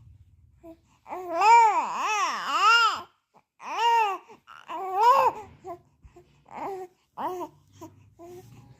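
A young child's high-pitched wordless vocalizing, a long wavering sing-song wail of about two seconds followed by several shorter ones with pauses between.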